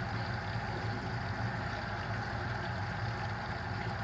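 Deep fryer running: a steady low rumble with an even hiss of oil frying over it.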